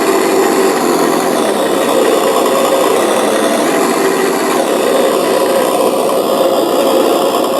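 Simulated diesel engine sound from an RC car engine sound module, played through the module's single speaker: a rough, steady running note that eases off near the end.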